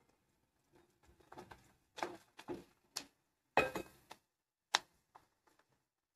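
A spoon stirring chopped onions sautéing in a pressure cooker, scraping and knocking against the pot in a string of irregular clicks, the loudest about halfway through.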